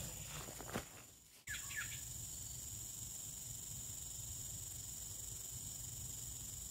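Steady high-pitched insect chorus of crickets or cicadas, with a few short falling chirps about one and a half seconds in.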